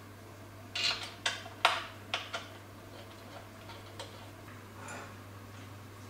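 Five sharp clicks and taps in quick succession, starting about a second in, from the steel table base and its mounting plate being handled on the walnut tabletop; a few fainter ticks follow.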